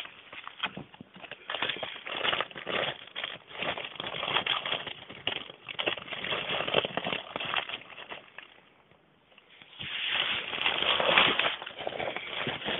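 Pet rat rustling and crinkling a thin plastic bag in irregular bursts of crackles. The rustling stops for about a second about two-thirds of the way in, then returns in a loud, dense stretch.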